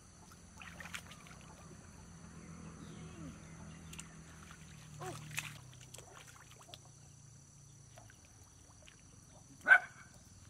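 Hands sloshing and splashing in shallow muddy water while groping for fish, with soft scattered splashes. Near the end a dog barks once, short and loud.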